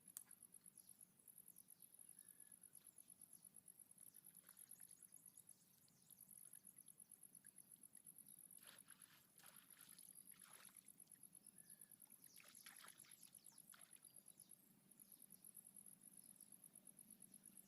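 Faint, rapid, pulsing high-pitched insect chirping that pauses briefly twice. A few faint scratchy rustles come in the middle.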